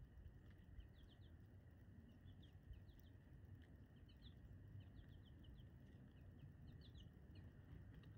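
Faint, many short high chirps of small songbirds, in loose clusters, over a low steady rumble.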